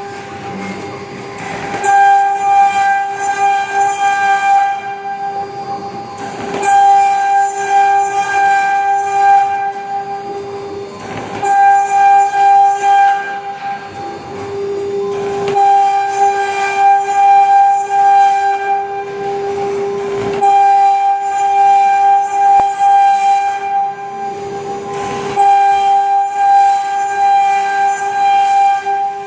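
Woodworking CNC router spindle whining at a steady high pitch while it cuts MDF, with short, noisier patches every four or five seconds.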